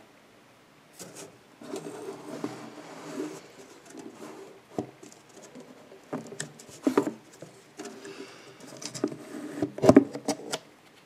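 Handling noises as a mesh screen lid is set on a snake enclosure: scattered clicks, knocks and rubbing, the loudest knocks about seven and ten seconds in. A muffled pitched sound runs under them in two stretches, one early and one near the end.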